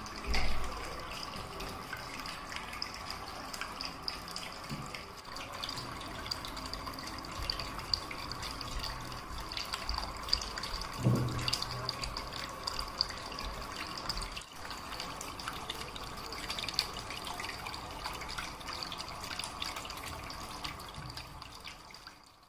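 Water from a small homemade waterfall falling and splashing steadily, with a low bump near the start and another about halfway through. The sound fades out at the end.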